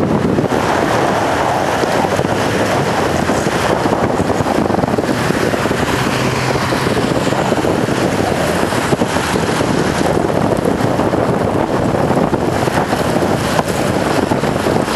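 Steady, loud wind rush buffeting the microphone of a handlebar-mounted camera on a moving bicycle.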